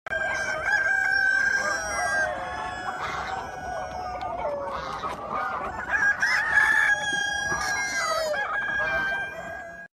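A flock of chickens clucking, with roosters crowing, many calls overlapping throughout.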